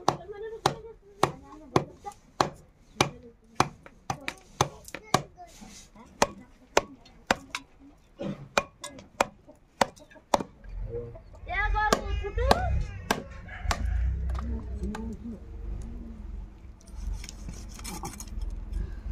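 Goat legs being chopped with a heavy curved blade on a wooden block: sharp, even chops about two a second for the first half. The chopping then thins out to a few scattered knocks under a low rumble, and a voice is heard briefly partway through.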